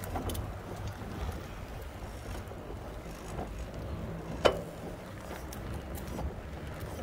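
Low steady rumble of a slow-moving ride over pavement, with wind on the microphone and one sharp click a little past halfway.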